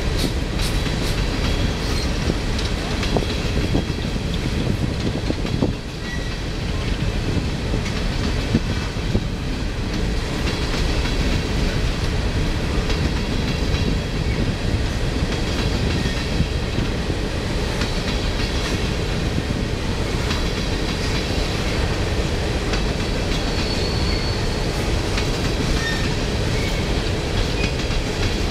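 Freight cars of a CSX coal train rolling past at speed: a steady, unbroken rumble of steel wheels on the rails.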